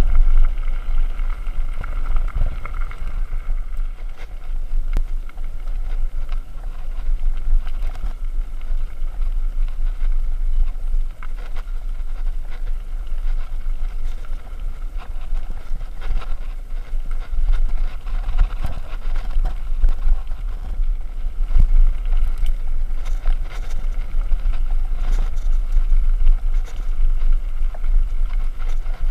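Continuous rumble of wind on an action camera's microphone while riding a Canyon Spectral AL mountain bike fast over gravel and dirt trail, with the rattle of the bike and many small knocks as it goes over bumps.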